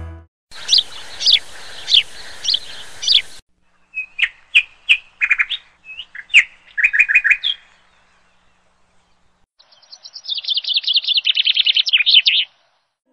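Birds calling in three groups. First come about five short chirps over a faint hiss, then a run of sharp, quick calls. After a pause, a rapid trill comes near the end.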